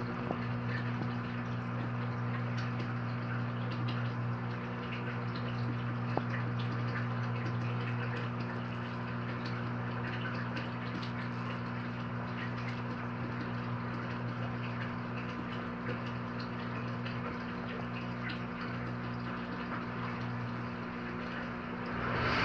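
Steady low hum with a faint hiss above it; a louder hiss swells in just before the end.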